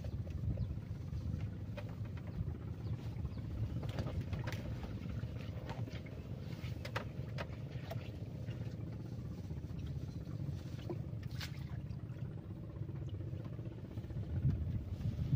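Steady low rumble of a boat engine running on the reservoir, with a few light clicks over it.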